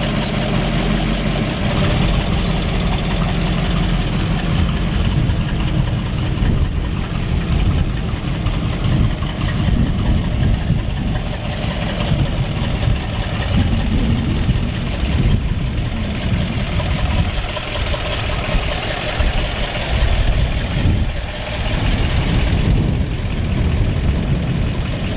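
1962 Chevrolet Bel Air's 409 V8 idling steadily shortly after a cold start.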